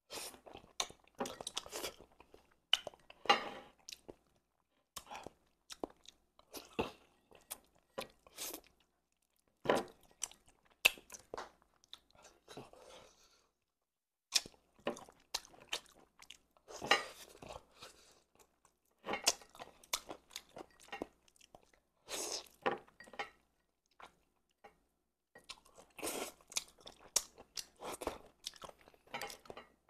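Close-up eating sounds of braised chicken heads being sucked and chewed: wet smacks, slurps and crunches in irregular clusters, with a short pause about four-fifths of the way through.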